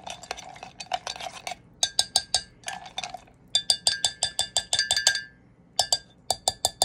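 Spoon stirring thick batter in a mug: soft scraping at first, then three quick runs of clinks against the mug's side, about seven a second, each ringing briefly.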